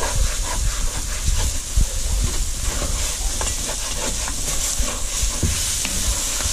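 Wooden spoon stirring and scraping chopped vegetables across the bottom of a cast iron pot of dark roux, in many short strokes over a steady sizzle and hiss of steam.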